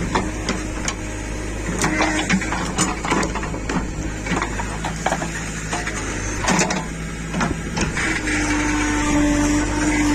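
Backhoe loader's diesel engine running steadily, with irregular clanks and knocks throughout; a steadier, higher engine note sets in about eight seconds in.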